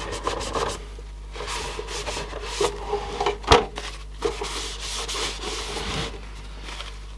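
Paper tissue rubbing in repeated swipes over the metal top cover of a Sony CD player, wiping off smudges. One sharp knock comes about three and a half seconds in.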